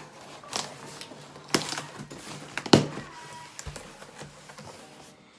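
Cardboard box being opened by hand: flaps pulled apart and rustled, with a few sharp cardboard cracks or rips, the loudest about halfway through.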